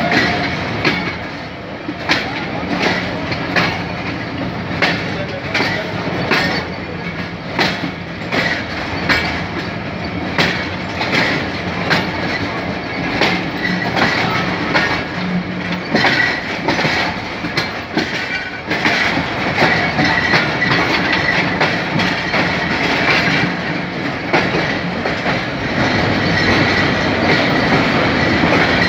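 Coach wheels of a diesel-hauled passenger train clacking over rail joints with a steady rumble as the train rolls into a station. A high metallic squeal comes and goes in the second half.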